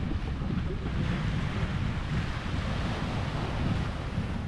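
Wind buffeting the camera microphone with a low, uneven rumble, over a steady wash of surf on the beach.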